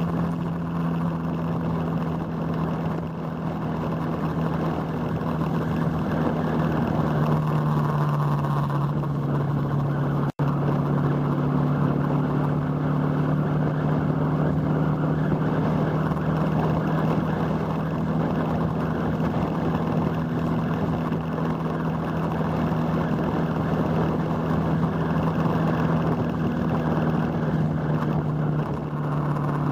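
Motorcycle engine running at a steady cruise, with wind rushing over the microphone; the engine note settles slightly lower about seven seconds in, and the sound cuts out for a split second about ten seconds in.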